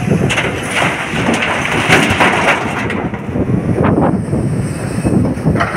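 Blasted rock pouring from a crawler excavator's bucket into a steel dump truck body: a rumbling crash of many stone impacts that thins out after about three seconds.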